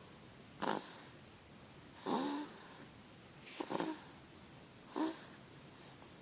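Sleeping baby snoring: four short snores a second or so apart.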